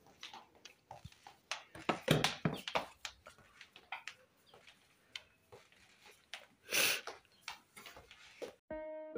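A young calf's hooves clicking and tapping irregularly on a tiled floor as it walks. A brief, louder rush of noise comes about seven seconds in, and plucked guitar music starts just before the end.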